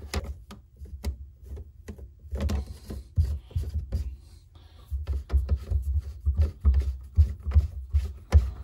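Plastic slip-joint nuts on a PVC sink drain being turned and snugged by hand: a run of small clicks and rubbing of plastic on plastic, with dull low thumps as the pipes are handled.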